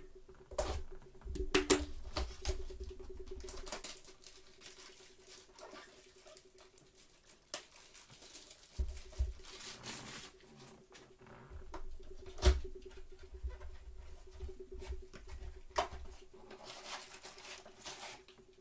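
Cardboard trading-card blaster box and cards being handled and opened by gloved hands: scraping and rustling of cardboard, with several sharp knocks on the table, the loudest about two-thirds through. A faint steady hum runs underneath.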